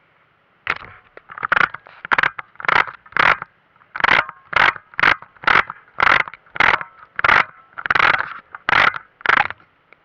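Rhythmic scraping close to the microphone, about two strokes a second, in time with someone walking. It starts about a second in and keeps an even pace.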